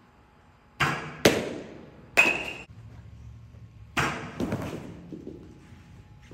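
Sharp thuds and knocks of a baseball catcher's blocking drill: balls bouncing off the turf mat and into the catcher's mitt and padded gear as he drops to his knees. The hits come in two groups of about three, roughly three seconds apart.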